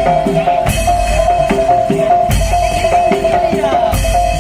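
Madurese daul (tong-tong) percussion ensemble playing: regular drum beats under a repeating pattern of pitched, gong-like notes.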